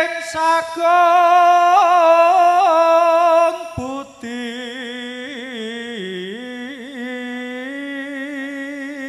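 A man's solo voice chanting a Javanese sung prayer (puji sesanti) into a microphone, drawing out long ornamented notes on one high pitch. After a short break about four seconds in, a quieter, lower phrase follows, its pitch wavering and dipping.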